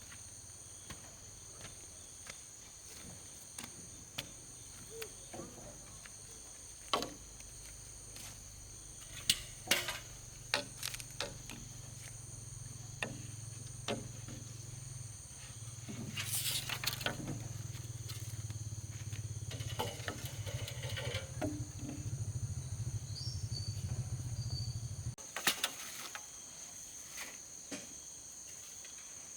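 Insects chirring steadily in two high tones, with scattered knocks and taps. A low hum grows louder in the second half and cuts off abruptly near the end.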